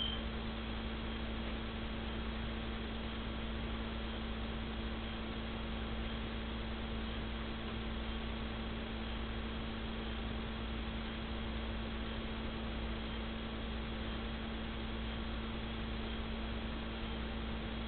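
Steady electrical hum with an even hiss underneath, unchanging throughout: the recording's own background noise, with no other sound.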